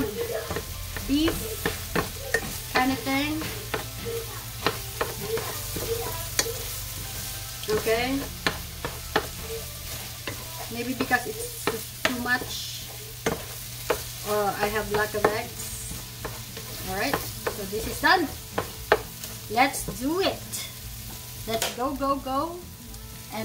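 Wooden spatula stirring and scraping egg and chopped vegetables around a metal frying pan in repeated strokes, with the food sizzling as it fries.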